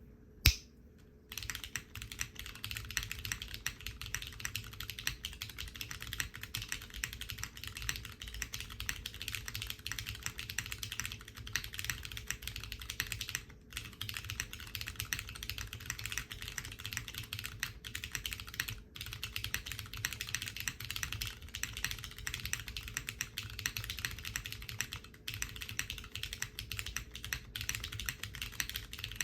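Steady typing on a Kohaku R2 custom mechanical keyboard with lubed and filmed Cherry MX Brown tactile switches, an aluminium leaf-spring plate, GMK keycaps and no dampening foam. A single sharp click comes about half a second in, just before the typing starts, and the typing stops briefly three times.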